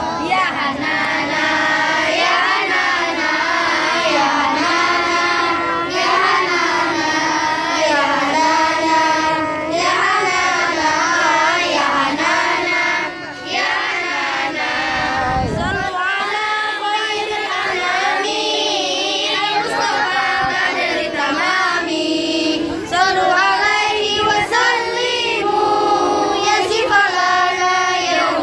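Children singing a melodic, chant-like song without pause.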